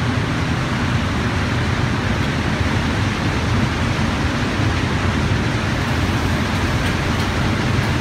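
Steady, loud rushing air noise, the ventilation of an indoor shooting range, with no gunshots.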